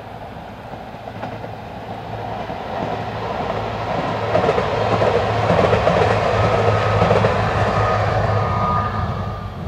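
Passenger multiple-unit train passing on a curving track, growing steadily louder as it approaches, with a steady low hum under the rumble and rattle of wheels on the rails. A faint high whine shows near its loudest, before the sound falls away near the end.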